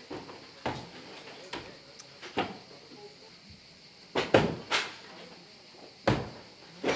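Demolition work: a series of irregular heavy bangs and knocks, such as blows on masonry, with a cluster of three loud ones about four seconds in and another strong one about six seconds in.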